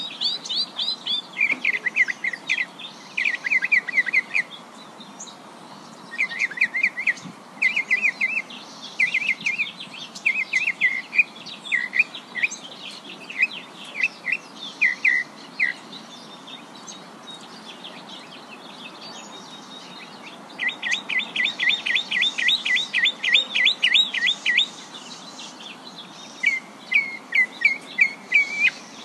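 A bird chirping in runs of quick, repeated high notes with short pauses between them, including a long fast run of about twenty notes around two-thirds of the way in.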